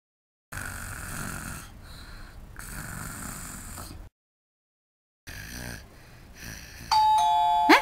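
Exaggerated snoring, three long breathy snores with pauses between them. About seven seconds in, a two-tone doorbell chime rings out loudly.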